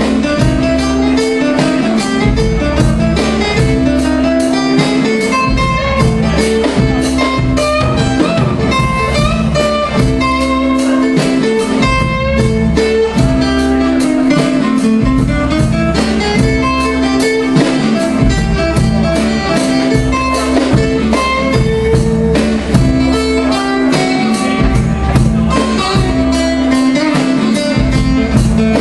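Live blues-rock band music: an acoustic guitar played over a drum kit keeping a steady beat, in an instrumental passage without vocals.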